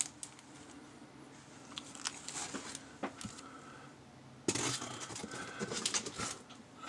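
Plastic comic-book bags crinkling and rustling as bagged-and-boarded comics are handled and swapped, with a few light taps. The crinkling grows louder and busier about two-thirds of the way through.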